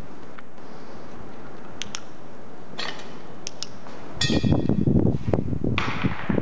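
Steady hiss from a handheld camera's microphone with a few small clicks. About four seconds in it gives way to a louder, uneven low rumble on the microphone as the camera is swung around.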